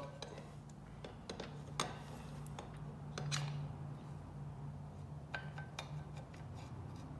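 A few light metal clinks and knocks from a 2017 Kawasaki KX450 engine's cylinder being worked back and forth and lifted off the piston by hand. A steady low hum runs underneath.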